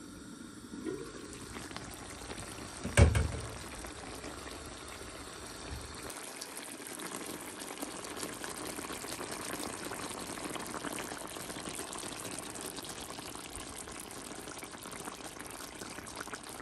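Chicken and chicken liver simmering in coconut milk in a pan, with a steady fine bubbling and crackling hiss. A single knock sounds about three seconds in.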